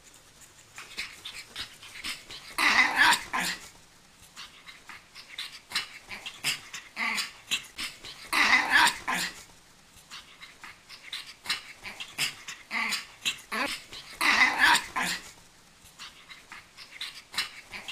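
Pug puppy spinning in circles on a bed sheet, letting out three short, rough dog sounds about six seconds apart, with small scuffling sounds in between.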